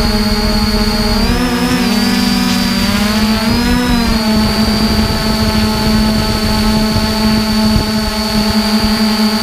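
Multirotor drone's motors and propellers whining steadily, heard close from the drone's own camera. About a second in, the motor pitches waver up and down for a few seconds as the drone changes heading, then hold steady again.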